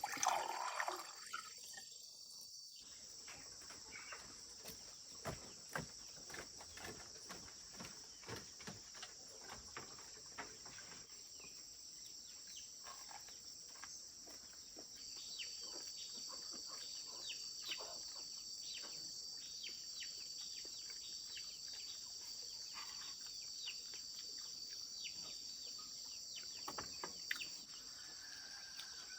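Steady high-pitched chorus of insects, with many scattered sharp clicks and rustles over it and a brief louder sweep of sound at the very start.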